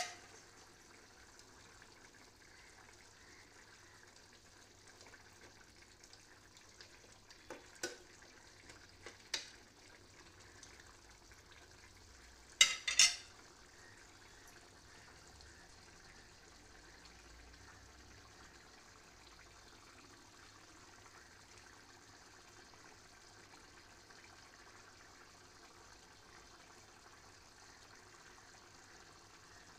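Chicken curry gravy simmering in a kadai, a faint steady bubbling as it cooks down because it is still watery. A few sharp pops break through it, the loudest a quick cluster about 13 seconds in.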